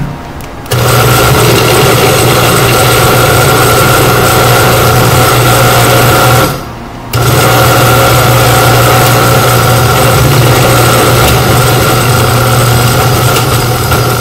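Countertop blender motor running at full speed, chopping a thick mash of onion, peppers and cilantro for sofrito. It starts about a second in, stops briefly around the middle, then runs again steadily.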